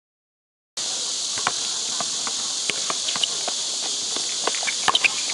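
A steady, high-pitched insect drone starts about a second in, with scattered short knocks and squeaks from a basketball game: the ball bouncing and sneakers on the court.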